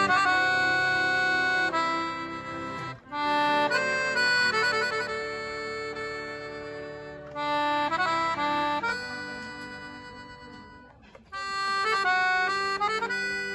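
Two piano accordions playing a melody together in held, reedy notes, phrased with brief breaks about three seconds in and again near eleven seconds.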